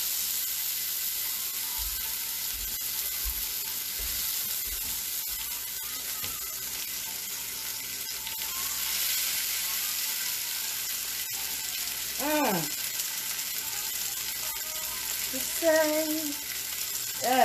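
Steak frying in a hot pan, a steady sizzle throughout. A woman's voice sounds briefly twice near the end.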